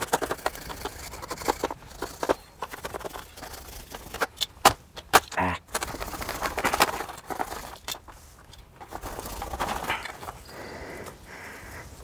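Hand tool scraping and cutting through wet soil and escape roots around a plastic nursery pot, with rubbing and knocking of the plastic pots. A run of sharp clicks and knocks comes about four to five seconds in, with longer stretches of scraping after it.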